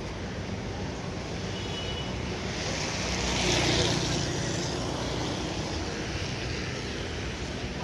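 Motor scooter passing close by on a wet street: its small engine and tyre hiss swell to a peak about three and a half seconds in, then fade, over steady street noise.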